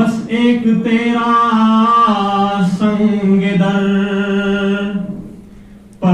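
A man singing a hamd unaccompanied, with no instruments. He sings one long phrase with held, wavering notes that fades out in the last second.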